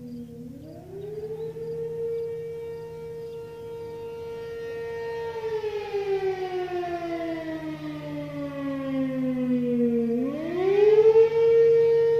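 ACA P-15 fire siren sounding the attack signal, heard from about a quarter mile away. Its pitch climbs about half a second in, holds high for a few seconds, slides slowly down, then climbs again near the end, where it is loudest.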